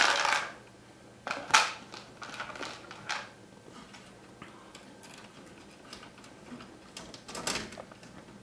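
Clicks and clatter of small parts and a screw being handled and fitted while a DLP TV's optical unit is reassembled: a sharp click at the start, then a few scattered knocks about a second and a half, three seconds and seven and a half seconds in.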